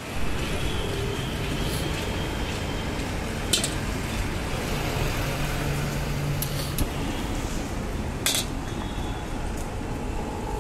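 A steel ladle clinking a few times against a large iron wok, over a steady rushing background noise.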